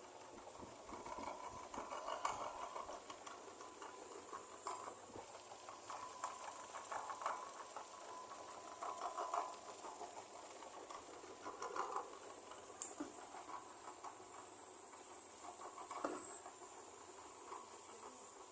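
Homemade dough-mixing machine churning a large batch of cilok tapioca dough: soft, wet squishing and pattering that swells about every two to two and a half seconds, over a faint steady hum.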